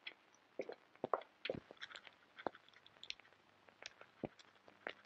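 Faint, irregular small clicks and scratches, scattered through the quiet with no steady sound beneath them.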